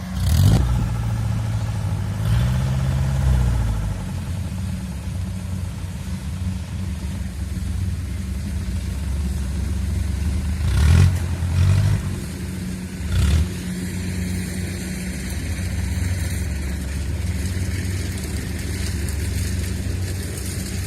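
Kubota DC70 combine harvester's diesel engine running steadily in a low rumble, swelling briefly early on, with a few short knocks from the machine.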